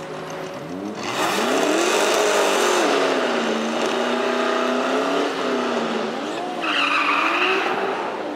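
Drag car doing a burnout: the engine revs up about a second in and is held high, wavering, while the rear tyres spin and screech. Near the end it dips and revs again, with a sharp tyre squeal.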